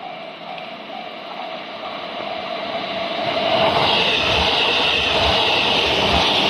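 JR Keihin-Tohoku Line E233-1000 series electric train approaching and passing close by: wheel-on-rail noise grows louder over the first four seconds, then holds as a steady rush with regular low thumps of the wheels.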